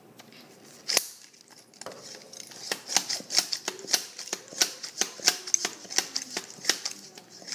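Toy marshmallow blaster being pumped by hand: a sharp click about a second in, then a run of quick plastic pump strokes, about three a second, each with a click and a rush of air.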